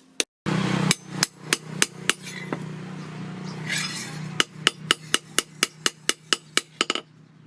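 Hammer blows on steel being forged, about three sharp ringing strikes a second, quickening briefly near the end, over a steady low hum.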